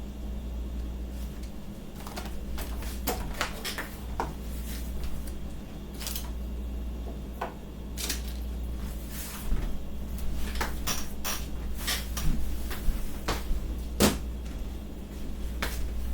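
Kitchen handling sounds: scattered knocks and clicks of cupboard doors and dishes being moved, coming thicker in the second half, over a steady low hum.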